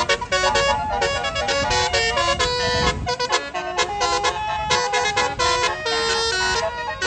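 Tour bus's basuri telolet horn playing a quick melody of short, blaring pitched notes, with engine rumble underneath for the first three seconds or so.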